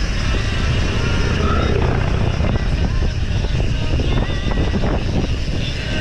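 Steady wind buffeting and road rumble on a bicycle-mounted or rider-worn camera while riding, with faint background music over it.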